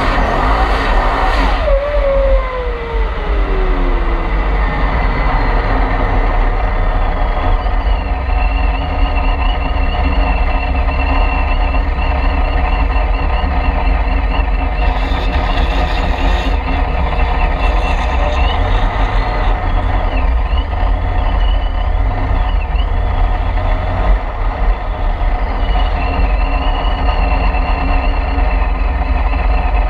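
Supercharged Corvette C6 Z06's 7.0-litre V8 running at low speed under light throttle, a deep steady rumble with a high whine over it. A whine falls in pitch during the first few seconds.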